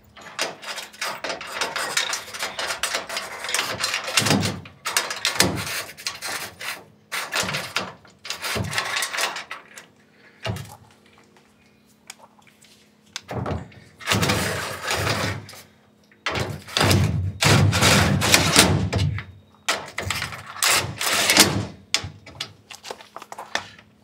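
Metal handling noise from a microinverter's steel mounting bracket being fitted onto a rail against corrugated metal cladding: irregular scrapes, rattles and knocks in bursts, with a pause of a few seconds about halfway through.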